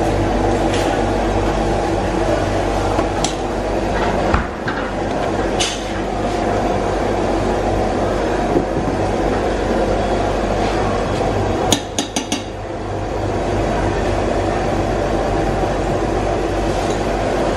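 A metal spoon clinking against stainless steel food pans and a metal ladle as seasonings are scooped, with a quick run of four taps about twelve seconds in. Under it runs a steady, loud roar of commercial kitchen equipment.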